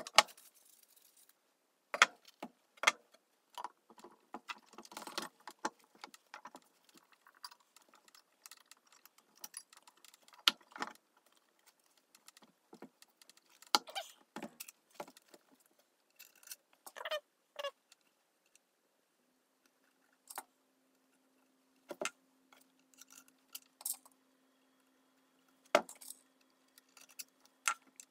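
Metal parts of a small electric motor handled and fitted together as the end bell is seated back onto the motor housing: irregular clinks, knocks and short scrapes.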